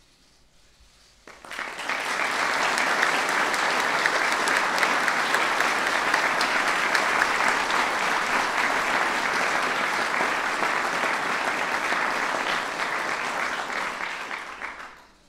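Audience applauding steadily for about thirteen seconds, starting abruptly about a second in and fading out near the end.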